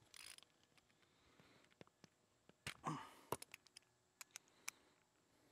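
Near silence broken by scattered faint clicks and light clinks of a hand wrench being handled on a small mower engine during a valve lash adjustment, with a short rustle about three seconds in.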